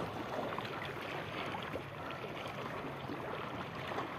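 Small waves lapping and sloshing in shallow seawater close to the microphone, with faint splashy crackle.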